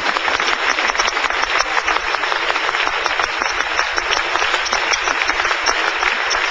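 Hall audience applauding steadily, a dense crackle of many hands clapping.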